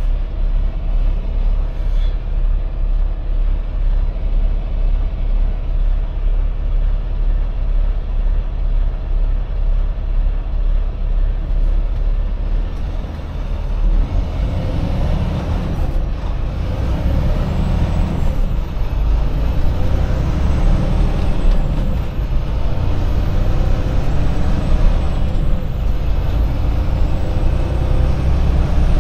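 Semi truck on the move: steady engine and road noise, growing louder about halfway through.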